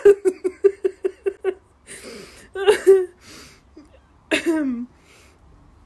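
A woman laughing hard: a quick run of about ten short staccato laughs in the first second and a half, a gasping breath in, another short burst of laughter, then a falling sigh near the end.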